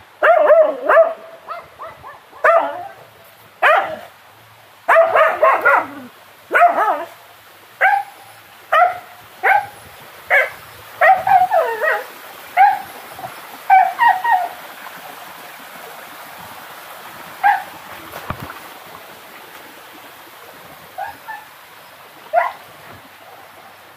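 A dog barking repeatedly, a quick run of short barks over the first dozen seconds or so, then only a few, more spaced out.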